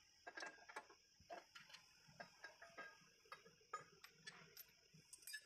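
Faint, irregular small metallic clicks and taps of tools being handled: an air impact wrench with its socket and extension, not running.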